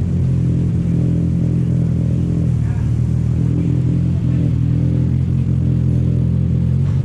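An engine idling steadily at close range, a low, even rumble with no revving.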